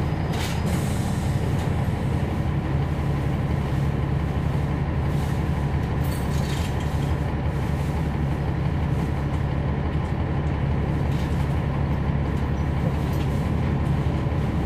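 Cummins ISL9 inline-six diesel engine of a NABI 40-SFW transit bus running steadily, heard from inside the bus.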